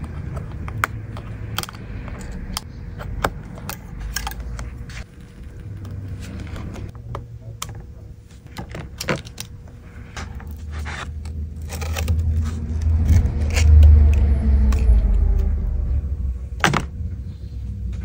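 Small sharp clicks and taps of a plastic spudger prying at flex-cable connectors and the metal frame of an opened iPad, many of them scattered irregularly. Under them runs a low handling rumble that swells for a few seconds past the middle as the display assembly is lifted away.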